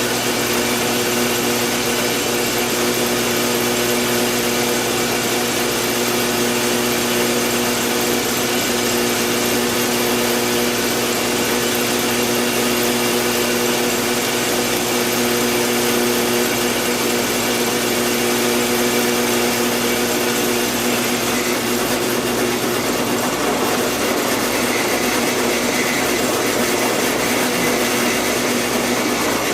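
Drill press running steadily with a constant motor hum while drilling holes out to 5/16 inch. About two-thirds of the way through the hum changes and a higher whine comes in.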